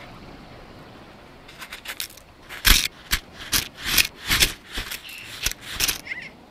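Action camera scraping and crunching against snow, with the lens pushed into it: a steady hiss at first, then about ten sharp knocks and scrapes, the loudest about two and a half seconds in.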